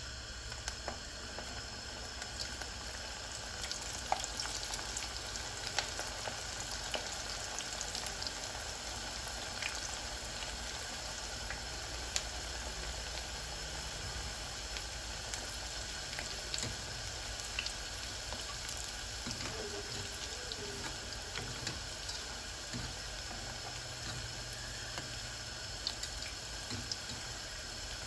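Sticks of cheese-and-parsley dough frying in hot vegetable oil: a steady sizzle with scattered pops and crackles.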